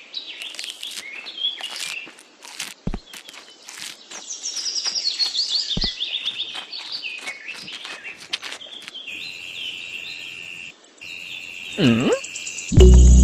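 Small birds chirping and calling, with quick trills and a falling run of notes, mixed with short clicks. Music starts in just before the end.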